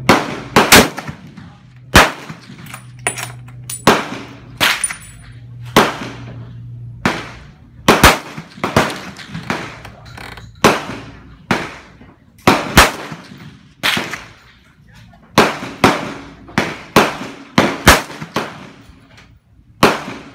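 Rifle gunfire at a shooting range: an irregular string of sharp shots, roughly one or two a second and of varying loudness, too fast for one bolt-action rifle, so several rifles are firing. Each shot is followed by a brief echo.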